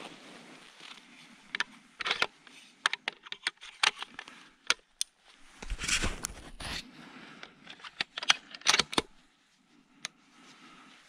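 Metallic and plastic clicks of a Tikka T3 bolt-action rifle being loaded by gloved hands: the cartridge-filled magazine handled and snapped in and the action worked. It comes as a string of sharp clicks, a longer scraping rattle about six seconds in, and a few more clicks shortly after.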